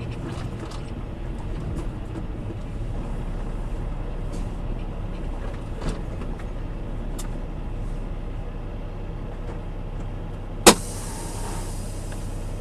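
Semi truck's diesel engine running steadily, heard from inside the cab, with one sharp, loud pop and a short hiss about ten and a half seconds in.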